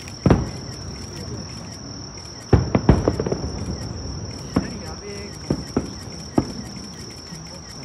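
Distant firework shells bursting: a string of about seven sharp booms, the loudest about a quarter second in and near three seconds in. Under them runs the steady high-pitched drone of night insects.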